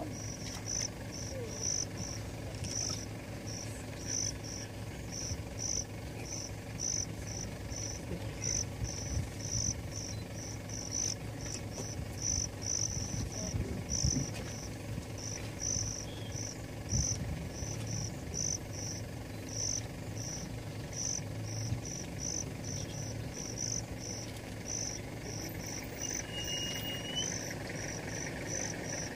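An insect chirping steadily: a short, high chirp repeated evenly about two or three times a second, over a low steady hum.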